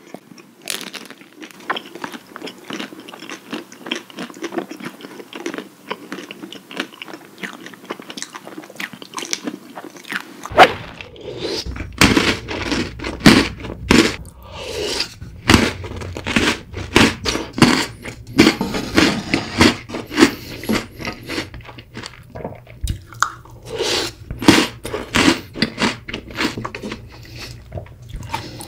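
Close-miked ASMR eating sounds: fine, crisp crunching and chewing of a chocolate bar at first, then from about ten seconds in a different recording with louder, more spaced mouthfuls as Maltesers in milk are chewed.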